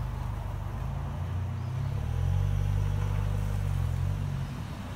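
1987 Chrysler Conquest's turbocharged four-cylinder engine running low as the car pulls away slowly. The note rises and gets louder about two seconds in, then drops back near the end as the car comes to a stop.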